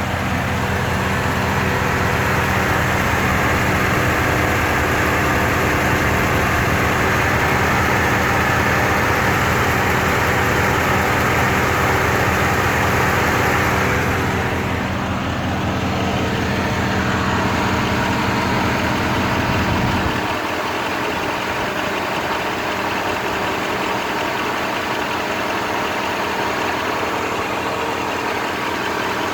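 Rover 3.5-litre V8 engine idling with a misfire. The deep low rumble drops away about two-thirds of the way through while the engine keeps running.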